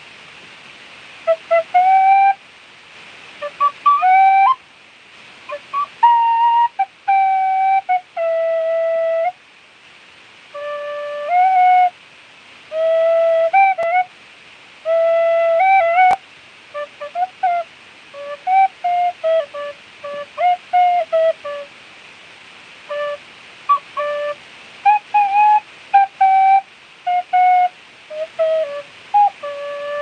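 Clarke Sweettone tin whistle played solo in a free improvisation: phrases of short notes with quick slides and grace-note flicks, a few longer held notes, and brief pauses between phrases. A single faint click sounds about halfway through.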